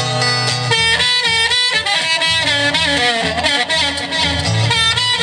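Band playing an instrumental break in a blues song: a lead melody bending and sliding in pitch over guitar and a bass line.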